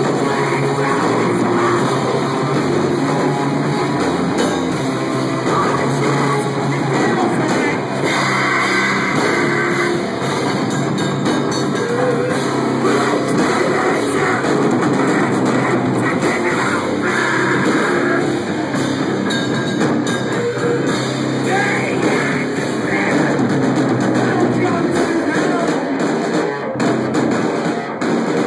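Loud live heavy metal band playing, with electric guitars and a drum kit.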